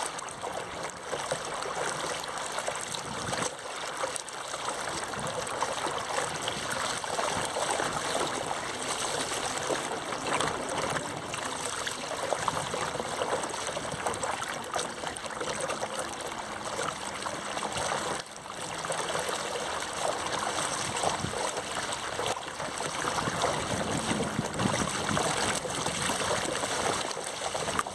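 Water rushing and splashing right around a camera sled skimming the surface: a steady crackling hiss that dips briefly about two-thirds of the way through.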